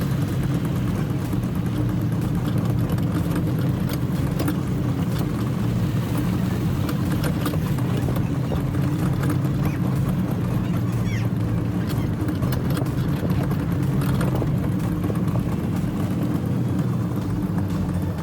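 A motor vehicle's engine running steadily, a low even drone with no change in speed.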